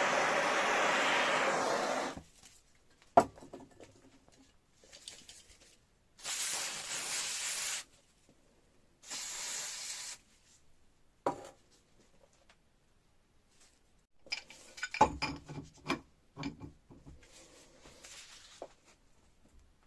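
A steady hiss that stops about two seconds in, then two short hissing bursts, followed by a run of clinks and knocks of metal parts being handled.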